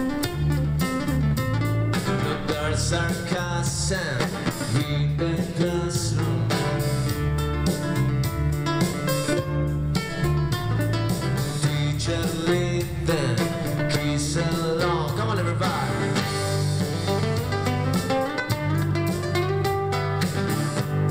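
A street musician playing amplified acoustic guitar: continuous strummed and plucked music over a steady, changing bass line.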